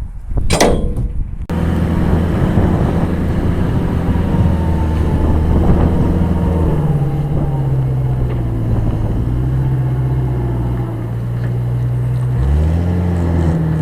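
An engine running steadily, its pitch dropping about seven seconds in and rising again near the end. A single sharp knock comes just before the engine sound begins.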